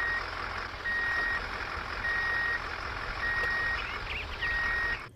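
Reversing alarm of a heavy Scania recovery truck beeping, a steady high tone about half a second long roughly every 1.2 seconds, over the low running of the truck's diesel engine. Both stop abruptly just before the end.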